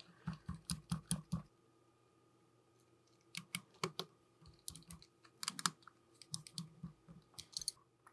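Small sharp clicks and taps in quick clusters, from a precision screwdriver fitting tiny screws into the side of a compact camera's body.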